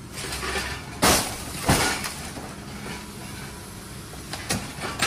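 A car dropped from a scrap-handling excavator's grapple crashes down with breaking glass: two loud crashes about a second apart, early in the sound. The excavator's engine runs with a steady low hum, and there is a smaller knock near the end.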